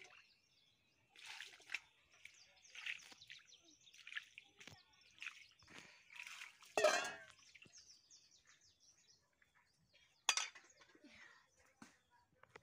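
Water splashing as it is poured from a steel bowl over a slaughtered goat's carcass on a rock, in several separate pours a second or two apart, with a sharper splash about ten seconds in.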